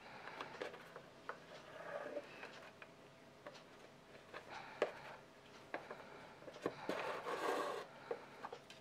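Handwork with leather and tools at a workbench: scattered light clicks and taps, with a longer rubbing scrape about seven seconds in.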